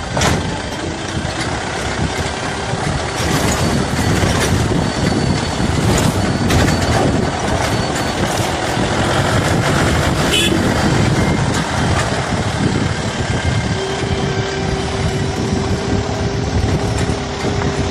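Vehicle driving over a rough dirt road: engine and road noise throughout, with knocks and rattles from the bumps, and a single engine note that comes in near the end and rises slowly.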